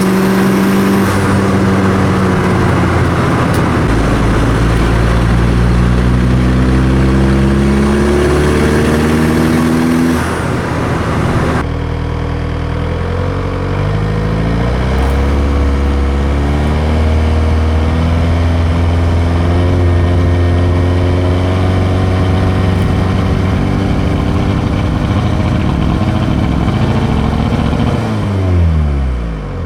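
VW 1.9 TDI (ALH) four-cylinder turbodiesel running with the revs climbing in steps and falling back several times, a sudden change in the sound about a third of the way in, and the revs dropping away near the end. The owner says this engine misfires at certain revs under light or no load.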